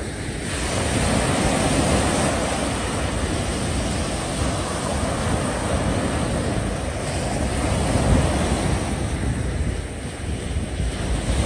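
Sea surf washing in, with wind buffeting the microphone; a steady rushing noise that swells and eases, dipping about ten seconds in.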